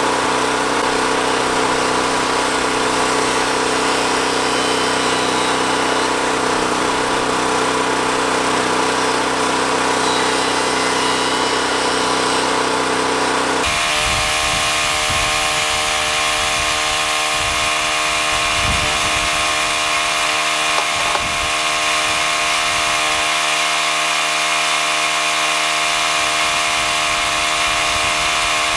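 A small engine or motor running steadily, its tone changing abruptly about halfway through to a different set of steady hums.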